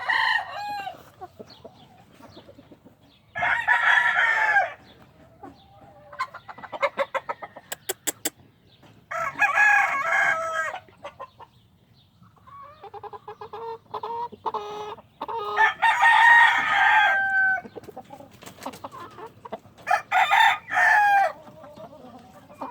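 Young three-month-old cockerels, half Plumber and half Roundhead, crowing about four times, each crow lasting a second or so. Softer clucking and pecking clicks fill the gaps between the crows.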